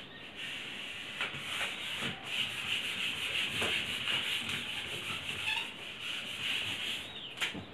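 A whiteboard being wiped clean by hand, a dry rubbing swish rising and falling with each back-and-forth stroke. A short sharp sound comes near the end.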